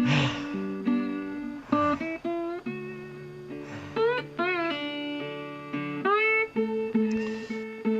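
Background music led by a plucked acoustic guitar, with a few notes sliding up in pitch.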